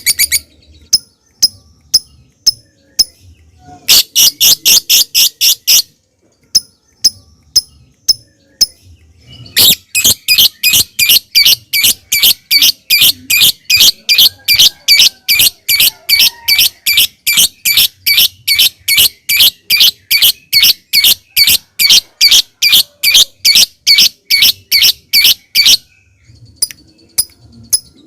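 Lovebird calling. It gives sharp single ticking notes (the 'ngetik' call) with a short burst of rapid chatter a few seconds in. From about ten seconds in comes a long unbroken run of high, harsh repeated notes, about three a second: the long 'ngekek' song. A few more ticks follow near the end.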